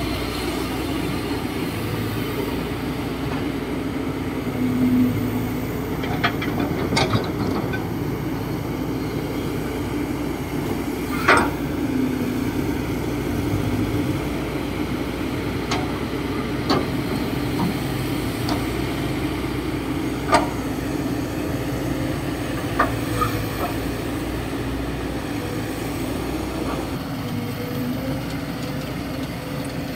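Kobelco SK200-8 excavator's diesel engine running steadily under hydraulic load as it digs and swings dirt, with sharp metallic clanks from the bucket and linkage now and then, the loudest about eleven seconds in and again about twenty seconds in.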